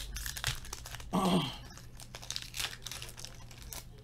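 Foil trading-card pack crinkling and tearing as it is opened by hand, with a short low voice sound about a second in.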